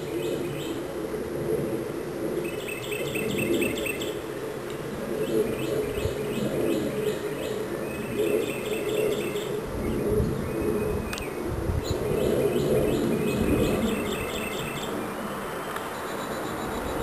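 Small birds chirping in short repeated trills over a steady, noisy low drone that sounds like a jet airliner passing overhead without fading away.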